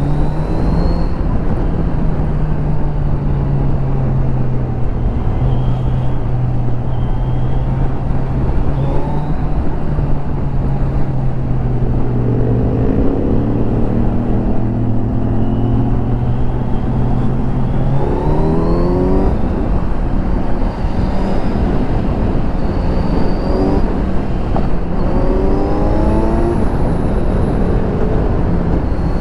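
Kawasaki Z900's inline-four engine through its stock exhaust, heard on board while riding. It holds a steady cruise for a long stretch, then the revs climb sharply about two-thirds of the way in and rise in several shorter runs after that, with constant wind and road noise underneath.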